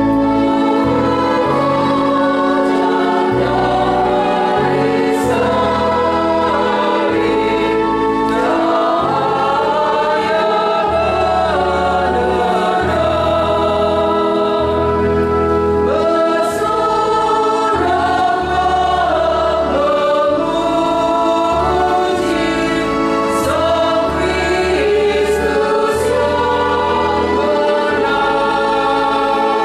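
Women's choir singing a Mass hymn in parts, with electronic keyboard accompaniment holding sustained bass notes under the voices.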